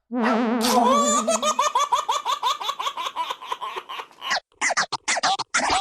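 High-pitched laughter in quick, even pulses, like a baby laughing. It breaks off about four seconds in and comes back in short choppy bits.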